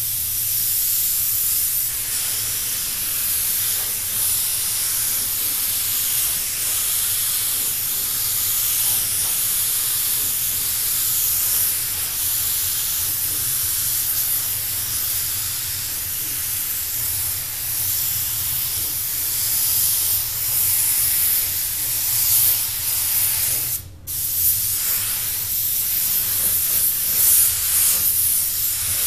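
DeVilbiss TE20 paint spray gun spraying onto a car panel: a steady, loud air hiss that stops for a moment about 24 seconds in when the trigger is let off, then carries on. A low steady hum runs beneath it.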